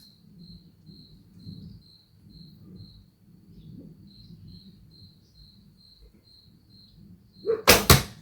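A cricket chirping steadily, about two chirps a second. Near the end, a quick cluster of loud, sharp cracks: the shot from a Jeil JuMong Gung laminated horse bow, the string released and the arrow striking the target.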